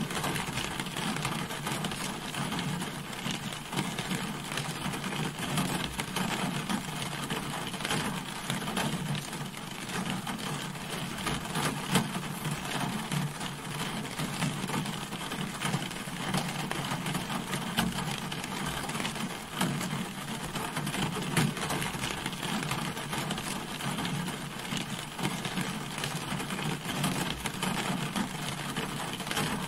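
Steady rain falling on a car, a dense patter of drops with frequent sharper individual hits.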